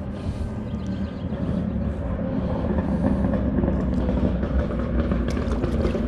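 Steady rumble of nearby road traffic that builds slowly, like a vehicle drawing closer, with a small splash near the end as a released redbreast sunfish drops into the creek.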